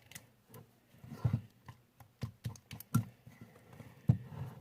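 About a dozen light, irregular taps and clicks of small objects being handled against a bowl.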